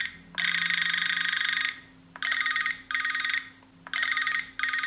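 Electronic telephone ringer warbling in repeated bursts: one long burst, then pairs of short ones.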